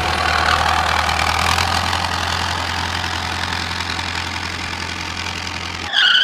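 A vehicle engine running steadily with a constant low hum. It cuts off near the end with a short, higher-pitched tone.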